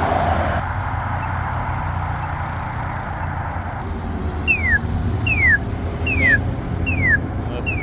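Traffic runs steadily. About four and a half seconds in, a Polara iNS accessible pedestrian push-button starts its walk indication: a short falling chirp that repeats a little more than once a second. The chirp, rather than a cuckoo or a rapid tick, signals that the walk phase has begun.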